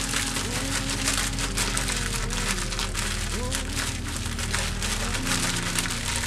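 Plastic bag crinkling and crackling as cookies are crushed inside it by hand, a dense run of small crunches.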